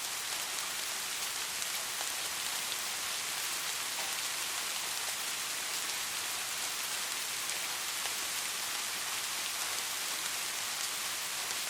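Steady rain falling: an even, dense hiss with faint scattered ticks of single drops.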